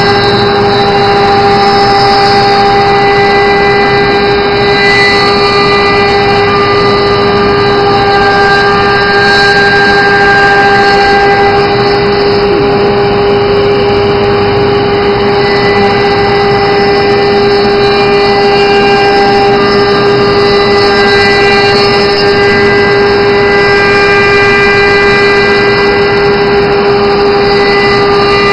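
Spindle of an automatic tool-change CNC router running at steady high speed: a constant high-pitched whine with overtones over the noise of the machine.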